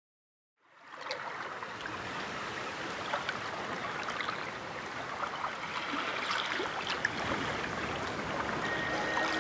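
Water sound effect of the sea: a steady splashing, rushing water noise with small crackles, fading in about half a second in. Music notes begin near the end.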